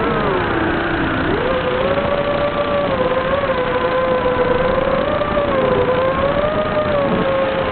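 Small FPV quadcopter's electric motors and propellers whining in flight. The pitch drops just after the start, climbs back about a second and a half in, then wavers up and down with the throttle.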